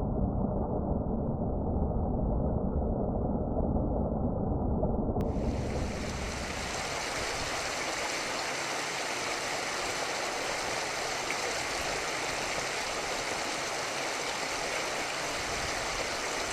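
Steady rush of flowing river water picked up by a trail camera's microphone. It is muffled and low for the first five seconds, then switches abruptly to a brighter, hissier rush that holds steady.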